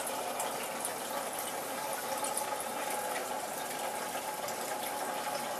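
Aquarium water trickling and splashing steadily, with many faint tiny bubbly ticks.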